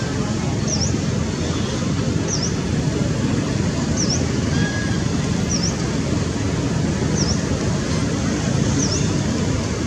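Steady low rumble of road traffic, with a short high bird chirp that dips down and back up, repeated regularly about every second and a half.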